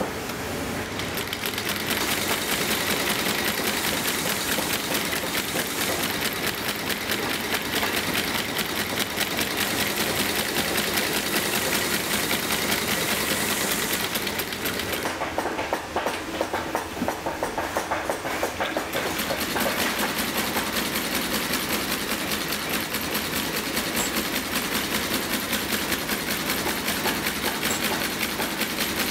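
Industrial sewing machine running steadily in fast, even stitches while sewing leather for a work boot, its tone changing briefly about halfway through.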